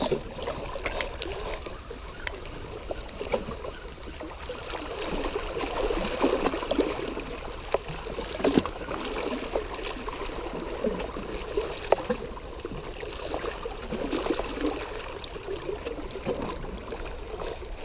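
Small waves lapping and gurgling against shoreline rocks, with occasional small clicks.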